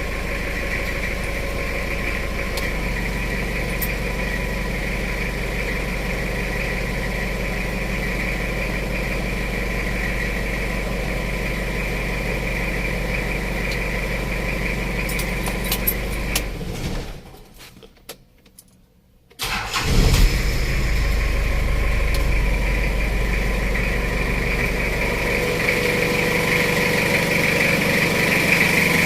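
Jeep Wrangler engine idling steadily, then switched off. After about two seconds of near silence the starter cranks it and it catches at once, settling back to a steady idle. This is a check for a starter or Bendix drive that is slow to disengage, and the mechanic found no abnormal starter noise.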